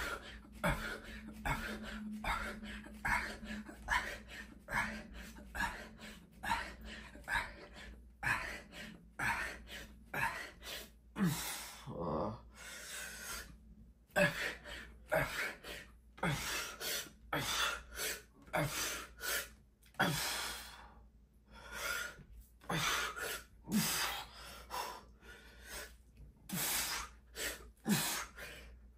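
A man breathing hard and rhythmically through a set of push-ups: sharp, gasping breaths roughly once a second, with a couple of short pauses.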